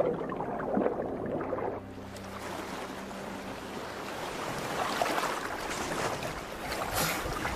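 Water sloshing and waves with wind on the microphone, as on a boat at sea, swelling about five and seven seconds in. A music score fades out in the first two seconds.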